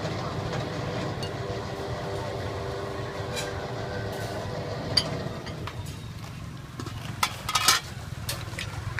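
A steady motor hum with a few held tones fades away about six seconds in. Then comes sharp metallic clatter, loudest in a quick cluster near the end, as an aluminium pot lid and crockery bowls are handled.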